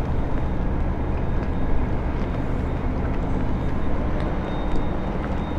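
Diesel engine of a harbour tug running with a steady low drone, with a few faint clicks over it.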